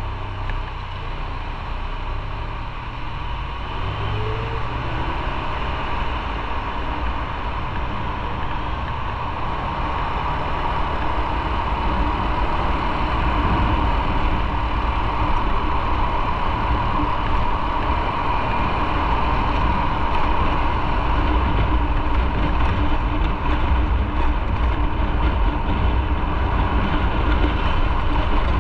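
Onboard sound of a motorcycle in traffic: the engine idles while stopped, then the bike pulls away. The rumble of engine, wind and tyres grows steadily louder as it gathers speed.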